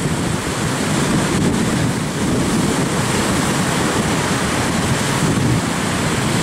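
Surf breaking on a beach, mixed with steady wind buffeting the microphone.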